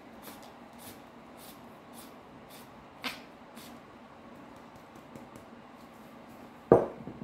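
Hand pepper mill grinding black peppercorns: a run of short, crisp crunching strokes, about two a second, for roughly four seconds. Near the end comes one loud, sharp knock on the tabletop.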